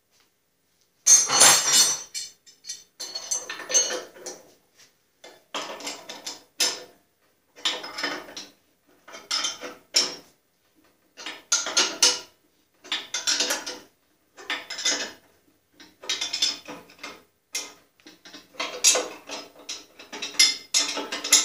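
Ratchet wrench clicking in a dozen or so strokes, roughly one every second and a half, as the nut is run down on the long bolt that holds a riser block in a Delta bandsaw's cast-iron column. The first stroke, about a second in, is the loudest.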